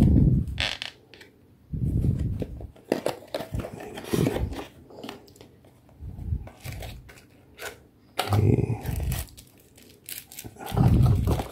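Cardboard box and paper packing being handled and opened: irregular rustling, crinkling and small clicks, with a few low bumps as the box is moved.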